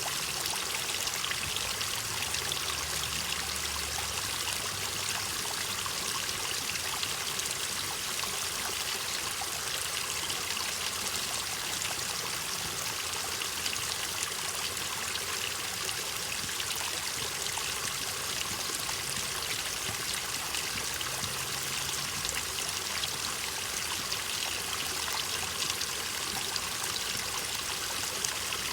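Waterfall: a steady rush of falling and splashing water, even throughout with no pauses.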